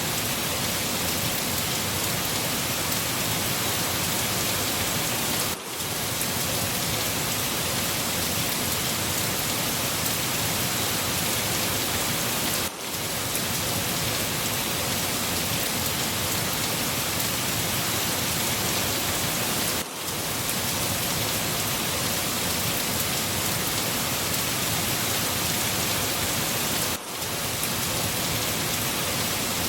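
Steady, dense rain falling on a surface, with a short dip in level about every seven seconds.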